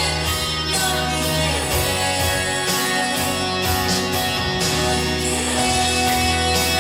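Music: a song with singing over guitar and backing instruments.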